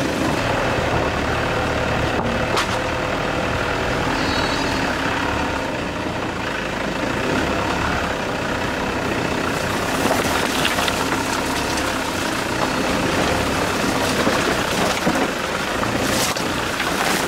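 Vehicle engine running steadily as it drives along a rough, muddy road, with a few short knocks from the bumpy surface.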